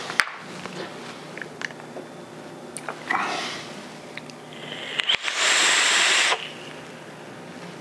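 A hit on a vape freshly dripped with e-liquid: a loud, even hiss of air drawn through the atomizer for a little over a second near the end, after a softer breathy draw about three seconds in.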